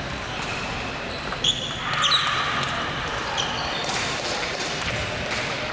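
Table tennis ball being hit by bats and bouncing on the table in a short rally: a handful of sharp, ringing ticks between about one and a half and three and a half seconds in, in a reverberant sports hall with faint ticks from play at other tables.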